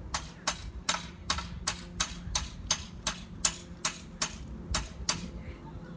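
Sharp, evenly spaced taps, about fourteen at nearly three a second, stopping a little after five seconds, from work at a joint of a military CP tent's steel pole frame.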